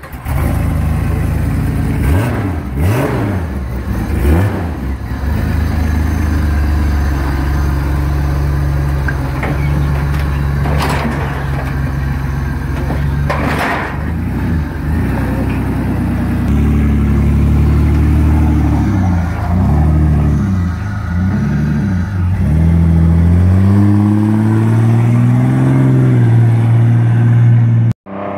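Lifted Jeep LJ's engine running as the Jeep is driven off a trailer, with a few sharp knocks in the first half. Later it revs up and down several times, then the note rises steadily as it pulls away, and the sound cuts off abruptly near the end.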